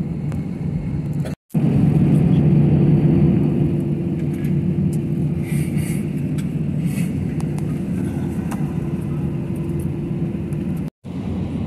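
Airliner cabin noise while taxiing: a steady low rumble of the jet engines and airframe with a steady hum, swelling for a couple of seconds after a brief cut to silence about a second and a half in; a second short cut to silence comes near the end.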